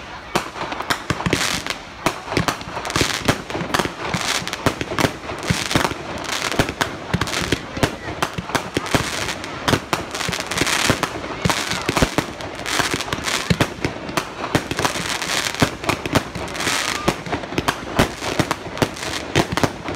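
Fireworks display: aerial shells going off in rapid, overlapping bangs and crackles, with no break.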